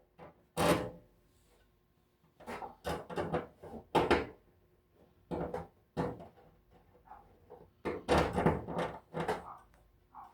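Irregular knocks, clunks and scraping as an electric stove heater's housing is handled and laid down so screws can be started into its bottom.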